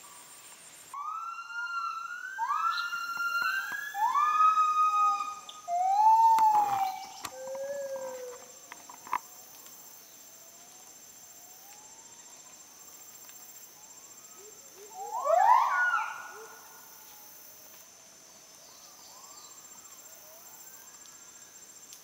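Müller's gibbons (kelempiau) singing: a run of loud, gliding notes that rise and fall, about one a second, for some eight seconds, then fainter notes and one loud rising call a little after the middle. A steady high-pitched insect drone lies underneath.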